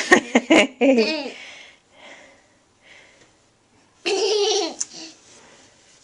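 A young child laughing and squealing in bursts, a run of laughs at the start and another loud burst about four seconds in.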